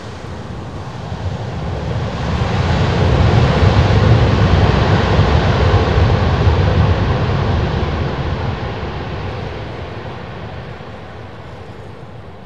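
Ryanair Boeing 737's jet engines in reverse thrust during the landing rollout on a wet runway. The noise swells about two seconds in, holds loud for several seconds with a deep low rumble, then slowly fades as the jet slows and draws away.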